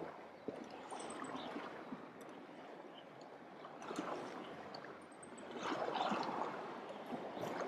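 Sea water washing and gurgling against shore rocks, swelling twice, about four seconds in and again near six seconds.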